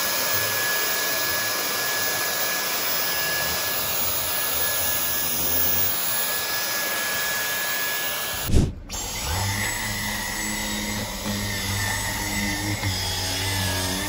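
Dyson V10 Absolute cordless stick vacuum running on its highest (third) power setting with the mini motorised brush head: rushing air under a steady high whine. About eight and a half seconds in, the sound breaks off with a thump and the vacuum carries on with a lower, weaker whine.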